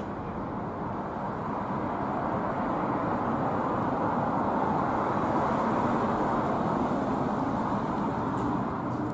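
Street traffic: a vehicle going by, its steady rumble swelling through the middle and fading near the end.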